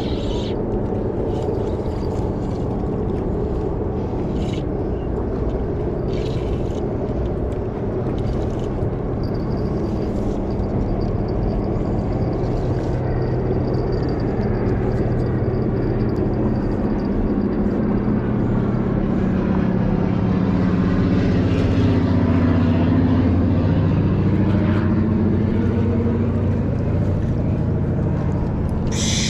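Low engine rumble running steadily, growing a little louder, with its pitch shifting about twenty to twenty-five seconds in, as if it is passing by.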